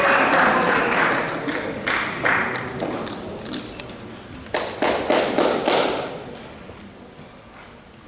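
Spectators cheering and clapping after a rally, dying away, with sharp pings of a table tennis ball being bounced between points, a cluster of them around the middle.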